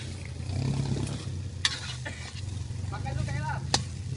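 Rice frying in a pan on a camping gas stove, sizzling as a metal spatula stirs and scrapes it, with a few sharp clinks of the spatula against the pan. A steady low hum runs underneath.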